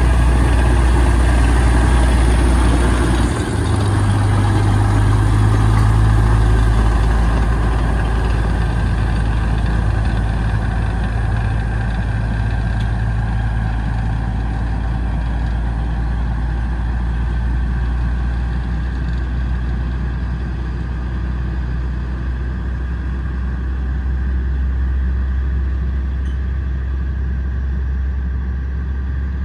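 Diesel locomotives of the Alishan Forest Railway running with a steady low engine drone. The engine note shifts about three seconds in, then the sound slowly fades as the locomotives move away.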